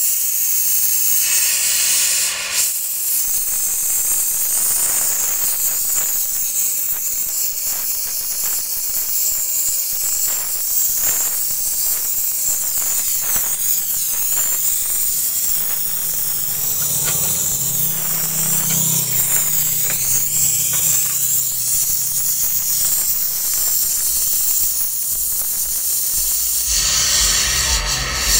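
Gas brazing torch hissing steadily as a refrigerator's refrigerant-line joint is brazed, with scattered light ticks.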